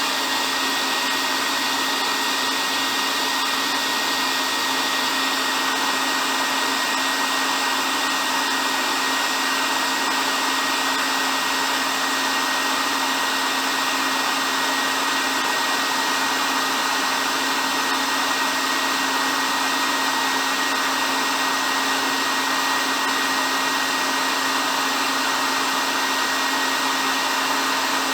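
Electric hair dryer running continuously at a steady speed: an even blowing rush with a low motor hum and a thin high whine that never change.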